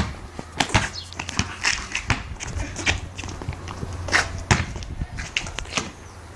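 Basketball bouncing on concrete and sneakers scuffing on the pavement in irregular knocks and scrapes, with a sharper knock about four seconds in as the shot reaches the hoop.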